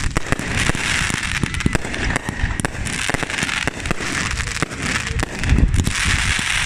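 Aerial fireworks going off in a dense barrage: continuous crackling with many sharp cracks and pops, and a cluster of deep booms about five and a half seconds in.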